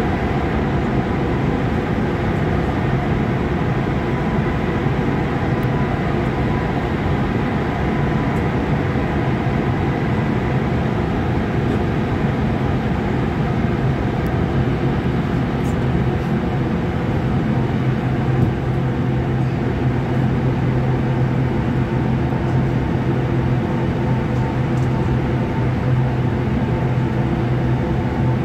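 Lille VAL rubber-tyred automated metro train running through a tunnel, heard from inside the car: a steady rumble of tyres and running gear with a low motor hum, the hum growing stronger from a little past halfway.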